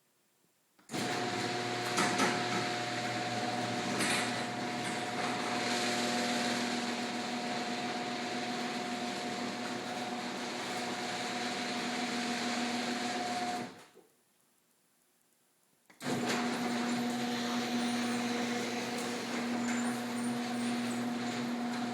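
Screw-drive garage door opener running the door with a steady motor hum, stopping about thirteen seconds in, then starting again two seconds later. The rollers, tracks, hinges, coil spring and screw drive are freshly lubricated, and no squealing groan is heard.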